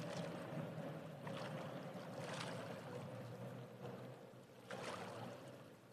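Faint background ambience: a low steady hum under a hiss, with a few soft swells.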